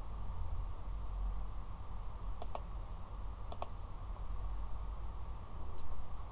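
Computer mouse clicks: a quick double click about two and a half seconds in and another click about a second later, over a steady low background hum.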